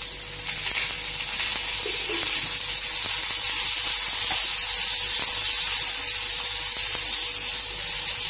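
Sliced onions sizzling in hot oil in a kadhai, stirred with a steel spatula, just after a little more oil has been added to fry them; the sizzle swells about a second in and then holds steady.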